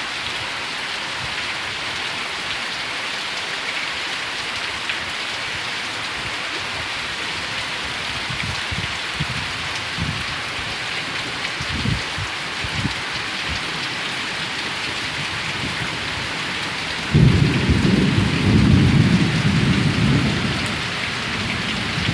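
Heavy rain pouring down steadily. A few faint low thumps come in the middle. About three-quarters of the way through, a loud rumble of thunder breaks in suddenly and lasts about four seconds.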